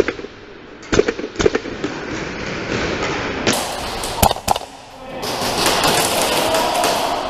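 Airsoft gunfire in an indoor arena: single sharp cracks about a second in, then a quick cluster of shots around four seconds in, followed by denser noisy din of the game.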